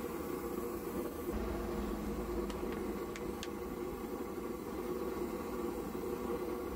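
Kerosene pressure stove burner running with a steady rushing noise under an aluminium pan, with a few light ticks around the middle.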